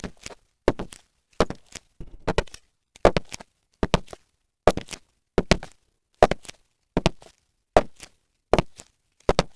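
Footsteps sound effect: a steady walk, about thirteen steps at one every 0.8 s, each step a quick heel-then-toe double tap.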